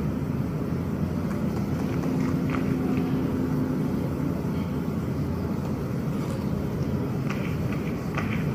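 Steady low rumble of open-air stadium ambience, with a few faint ticks scattered through it.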